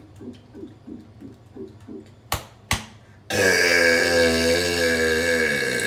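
A man's long, loud burp that starts about three seconds in and drops in pitch near its end. Before it come soft rhythmic sounds, about three a second, and then two sharp clicks.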